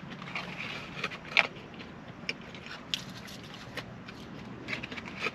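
Eating sounds: chewing and small crackles and clicks of food wrappers being handled, scattered irregularly over a steady low hum.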